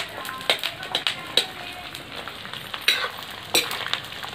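Babul gond (acacia gum) sizzling as it fries and puffs up in hot linseed oil in an iron kadhai, while a steel ladle stirs it, scraping and clinking sharply against the pan several times.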